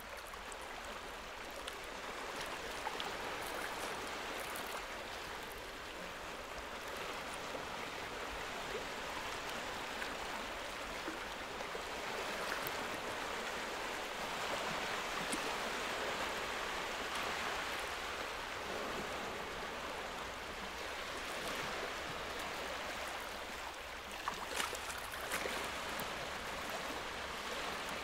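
Small sea waves washing and lapping against a rocky shore: a steady hiss of water that swells and eases a little, with a few sharp clicks near the end.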